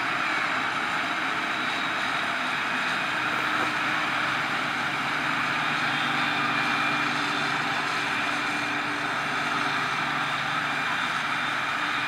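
Claas self-propelled forage harvester chopping standing maize: engine, cutterhead and blower running together as a steady rushing drone with a faint high whine.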